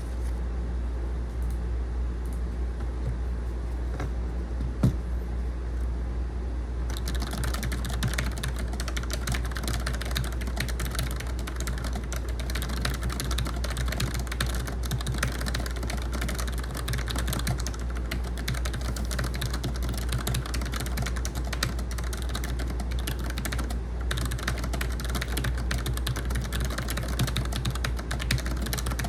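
Fast, continuous touch-typing on a Logitech MX Mechanical keyboard with linear switches, starting about seven seconds in after a few stray key clicks. An air conditioner hums steadily underneath throughout.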